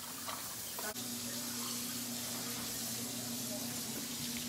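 Water running steadily from a kitchen tap into a sink, a continuous rushing hiss that gets a little louder about a second in, with a low steady hum beneath it.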